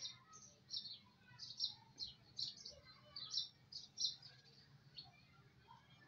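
Small birds chirping in quick, short, high notes, about three a second at first, thinning out to the odd chirp in the last two seconds.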